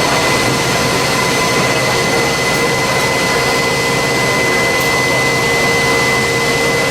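Jet engine running steadily: a constant high whine over a loud, even rush of noise.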